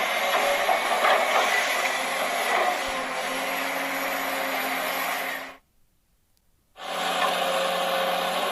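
Small electric motors of a radio-controlled excavator and truck whirring steadily, with a dead-silent gap of about a second a little past halfway.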